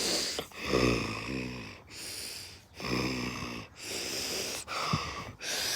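A person's sneeze wind-up: a run of about seven wheezy, gasping 'ah… ah…' in-breaths, two of them long and voiced, building toward a sneeze that has not yet come.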